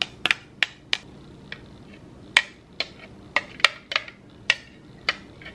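Metal spoon tapping and scraping against a plastic food-maker jar, its lid and a plastic freezer tray while scooping strawberry puree: a string of light, irregular clicks.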